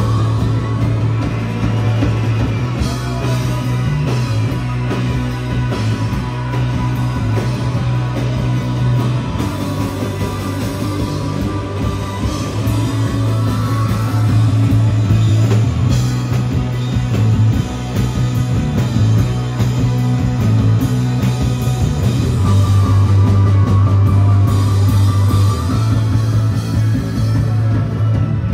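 Live rock band playing: electric guitars, electric bass guitar and drum kit, with a heavy bass line.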